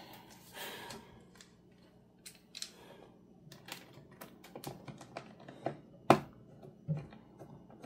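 Faint, irregular small clicks and ticks of a Phillips precision screwdriver driving screws back into a laptop's bottom case, with one sharper click about six seconds in.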